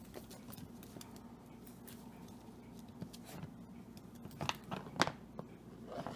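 Mini wirehaired dachshund puppy playing with toys on a wooden floor: faint scattered taps, clicks and scuffles of claws and toys, with two sharper clicks about four and a half and five seconds in. A steady low hum runs underneath.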